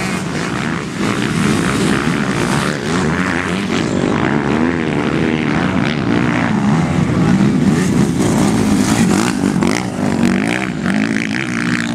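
Motocross bike engines racing on the track, revving up and down so the pitch keeps rising and falling, with several engines overlapping.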